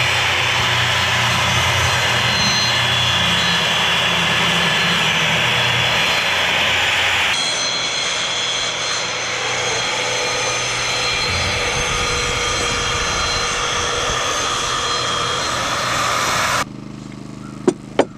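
Power saw running steadily while cutting lumber, changing abruptly about seven seconds in and cutting off suddenly near the end, followed by two sharp knocks.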